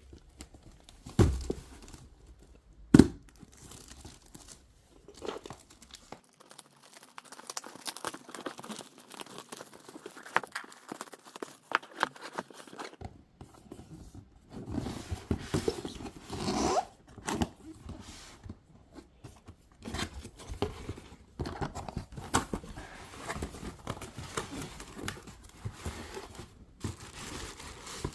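Product packaging being opened by hand: tearing, crinkling and rustling, with many small clicks. Two sharp knocks come in the first few seconds.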